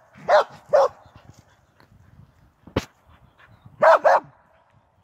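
A dog barking: two quick barks early on, then two more about four seconds in, with a single sharp click or snap in between.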